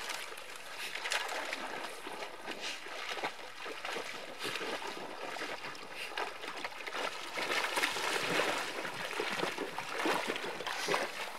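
A retriever dog swimming and wading through icy flooded timber. Water splashes and sloshes, with irregular crackling from the thin skim ice it breaks through, louder in the second half as it plows through the shallows.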